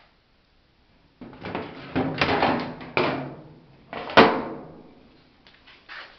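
A clothes dryer's plastic lint screen and door being handled: scraping and rattling for about two seconds, then one sharp clack about four seconds in, as the door is pulled open.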